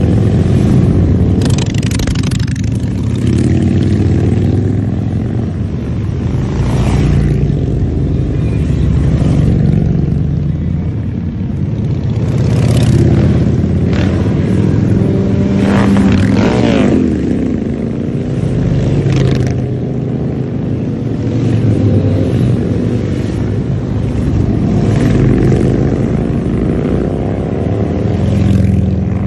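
A procession of motorcycles, mostly big touring bikes, rides past one after another, with loud, steady engine rumble. Several bikes pass close, each swelling and fading in loudness as its engine note sweeps by.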